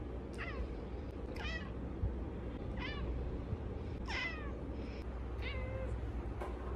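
Domestic cat meowing: five short meows that each fall in pitch, about one every second and a half, over a steady low hum.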